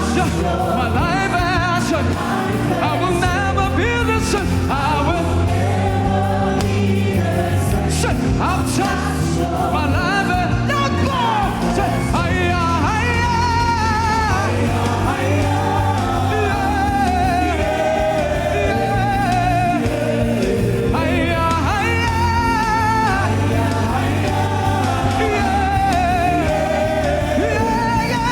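Gospel praise music: a choir singing over instrumental backing with a steady bass line.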